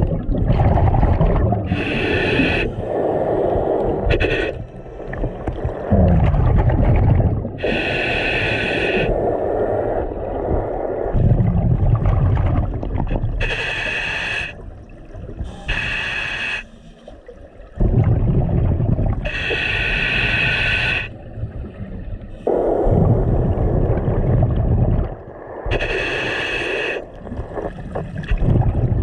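Scuba diver breathing underwater through a regulator: a hiss of inhaled air through the demand valve about every six seconds, each followed by a long low rush of exhaled bubbles.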